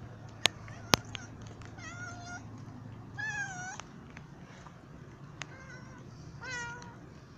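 A cat meowing three times, about two, three and a half and six and a half seconds in. Two sharp clicks in the first second are the loudest sounds, over a faint steady hum.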